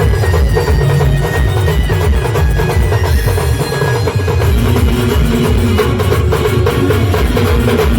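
Loud band music: drums and percussion keep a steady, driving beat under a melody.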